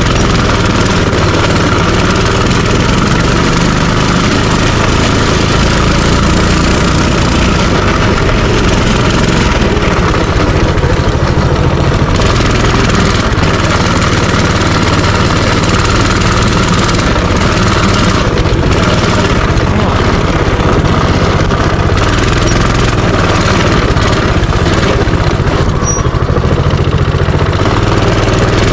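Minibike's small engine running steadily under way, loud and unbroken.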